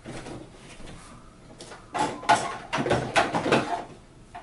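Hard plastic parts of a VTech Sit-to-Stand Learning Walker rattling and scraping against a cardboard box as a leg piece is dug out and lifted. The clatter is loudest from about two to four seconds in.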